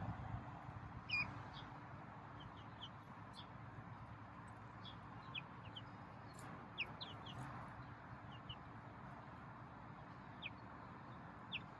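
Seven-week-old chicks peeping: scattered short, high chirps, several sliding downward, some in quick pairs, over a faint low background hiss.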